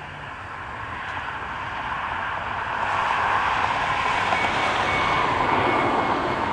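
Jet aircraft engines growing steadily louder as the plane approaches, with a faint thin whine in the middle of the noise.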